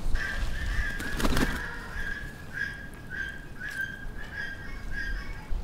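A bird calling in the background: a steady series of whistled notes at one pitch, about two a second, for about five seconds. A short crackle comes about a second in.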